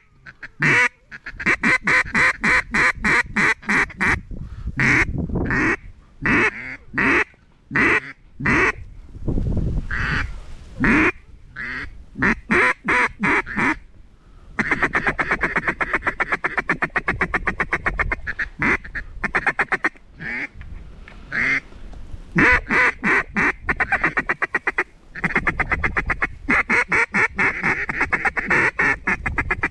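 Mallard duck call blown in hen quacks: several series of loud single quacks, then from about halfway through long runs of rapid feed chatter, broken by a few more single quacks.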